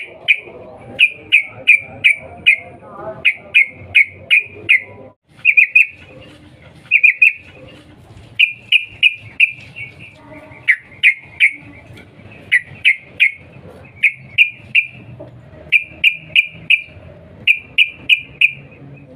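Yellow-vented bulbul giving its sharp, repeated 'cuk cuk' calls. The short notes come in quick runs of three to five, each note dropping slightly in pitch, with brief pauses between runs.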